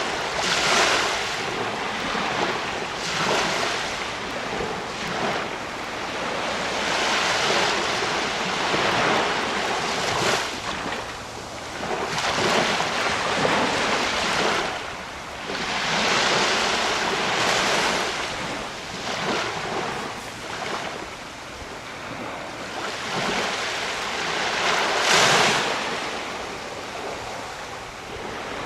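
Sea waves breaking and washing on a beach, a steady rush of surf that swells and eases every few seconds.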